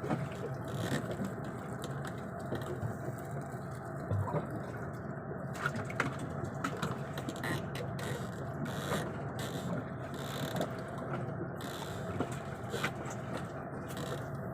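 A boat's engine running steadily, with scattered light clicks and knocks of fishing tackle being handled.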